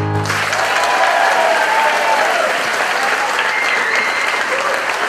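Theatre audience applauding at the end of a song, the last chord of the music cutting off just after the start.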